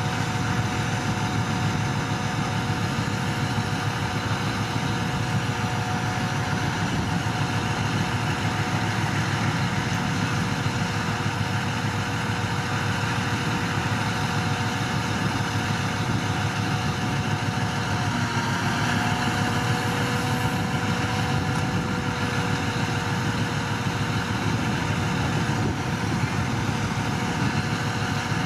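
Crane truck's diesel engine running steadily, a continuous mechanical hum with a faint steady whine that wavers briefly about two-thirds of the way through.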